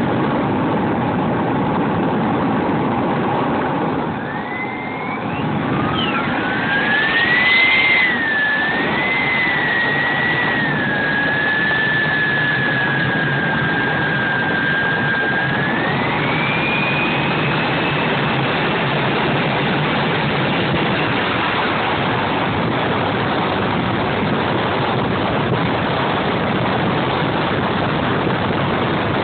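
Model jet's turbine engine heard from a camera mounted on the airframe: a whine rises in pitch as it spools up, wavers, holds steady, then climbs again about halfway through, over a steady rushing roar. This is the turbine going up to takeoff power for the takeoff roll and climb-out.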